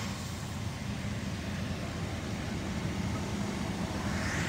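Fire engines running steadily at the scene, a low diesel rumble with a steady hum. Near the end a higher steady whine joins in.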